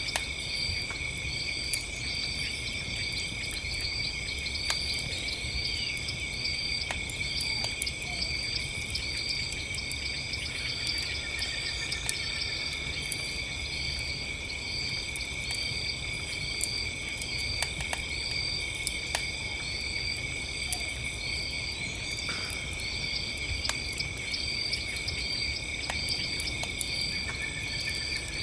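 Crickets chirping steadily in several layers, one chirping about twice a second, over a crackling campfire with scattered sharp pops.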